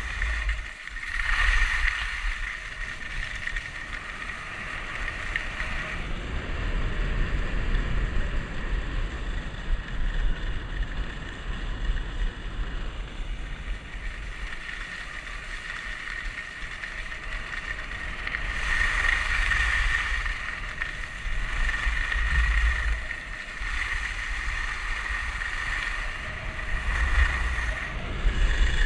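Skis hissing and scraping over groomed snow during a fast run, with wind buffeting the microphone in a low rumble; the noise swells louder several times.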